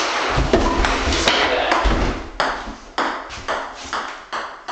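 Ping-pong ball making a string of sharp, light clicks, the hits coming quicker and more evenly, about three a second, in the second half.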